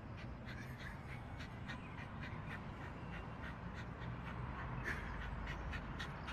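Small dog panting and snuffling in quick short puffs, about four a second, as it runs nosing a football along, over a steady low rumble of wind on the microphone.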